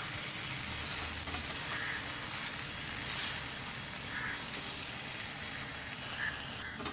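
Marinated chicken pieces sizzling in hot oil and butter in a kadhai while they are mixed with a spatula; a steady frying hiss that eases a little near the end.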